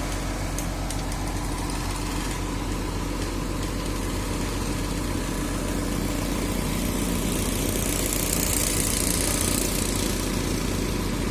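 Diesel engine of a large intercity coach idling and running at low speed as the bus manoeuvres slowly into its bay, with a hissing noise for a couple of seconds near the end.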